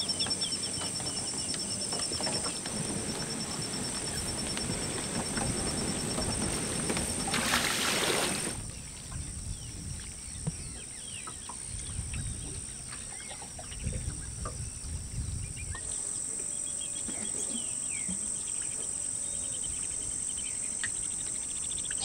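Marsh ambience: insects trilling steadily at a high pitch, with scattered short bird calls. A low rumble runs through the first eight seconds or so, ending in a brief rush of noise, after which the sound is quieter.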